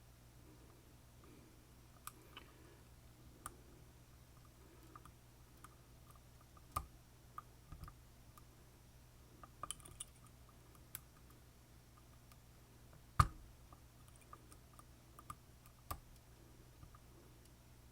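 Faint, scattered clicks and ticks of lock picks working the pins of an Assa Twin Combi high-security lock cylinder, with a sharper click about seven seconds in and the loudest about thirteen seconds in, over a low steady hum.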